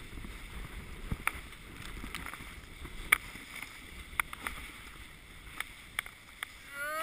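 Cascade 350 rescue toboggan sliding over packed snow under tow: a steady scraping hiss from the hull, broken by sharp knocks about once a second as the sled jolts.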